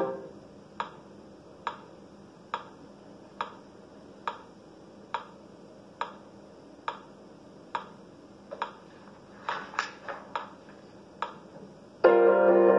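Metronome ticking steadily, a little more than one tick a second, counting through a rest in the piano accompaniment, with a few extra softer clicks about ten seconds in. The piano comes back in loudly about twelve seconds in.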